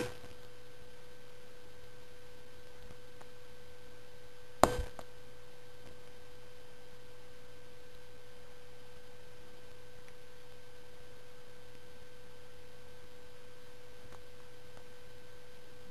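A steady humming tone, holding one pitch without change, with a single sharp click nearly five seconds in.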